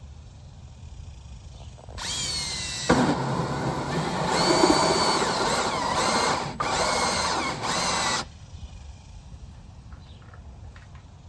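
Power drill running in several bursts over about six seconds, with a high whine. It starts about two seconds in and stops near the end.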